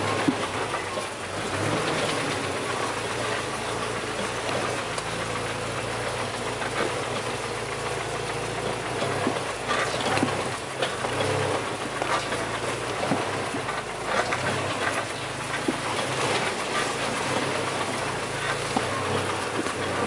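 Off-road 4x4 vehicle driving over a rough track: the engine runs low and steady under frequent knocks and rattles from the body and suspension.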